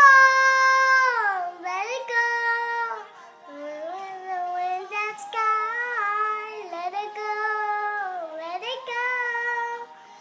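A young girl singing in a series of long held notes, several phrases with short breaks, the pitch sliding down at the end of phrases.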